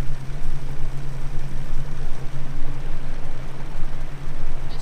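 Boat's outboard motor running steadily under way, a constant low drone with a loud steady rushing noise over it.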